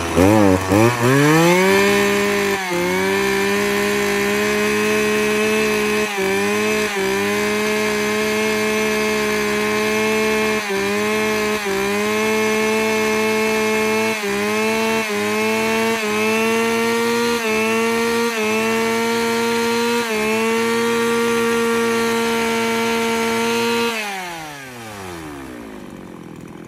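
Shindaiwa 303 two-stroke chainsaw engine running smoothly at high revs after a test start, with a quick rev-up at first and brief throttle dips every second or so. About three seconds before the end the revs fall away as the engine winds down.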